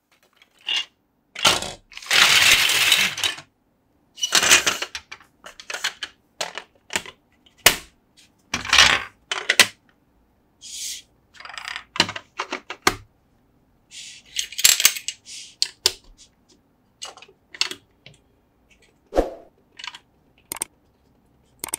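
Large plastic building bricks clattering and clicking as hands handle them and press them together. There are irregular sharp clicks and short rattles with pauses between, and a longer clattering stretch about two seconds in.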